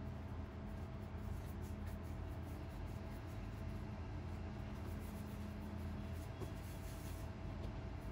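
A steady low hum with a few constant tones, and faint soft rubbing of hands rolling bread dough into balls.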